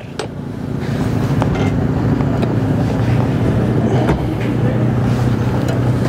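A nearby engine running steadily, swelling over the first second and then holding. Faint metallic clicks of steel tyre levers working a motorcycle tyre bead onto the rim sound now and then.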